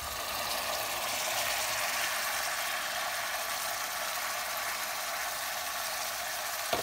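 Hot olive oil and tomato and pepper paste sizzling in a steel pot as wet chopped leeks are tipped in from a colander: a steady hiss that grows a little louder in the first second or two, with a short knock near the end.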